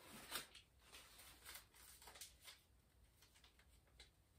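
Faint rustling and light clicks of papers and small objects being handled, a few brief ones in the first couple of seconds, then near quiet.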